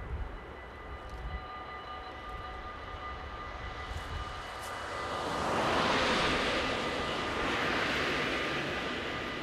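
Level-crossing warning bell ringing steadily as a high multi-tone ring. From about halfway, two cars drive over the crossing: their tyre and engine noise swells twice to its loudest and fades again.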